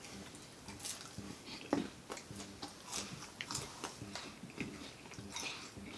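Close-up chewing and biting: a person eating fried food, with irregular wet smacks and soft crunches, several a second.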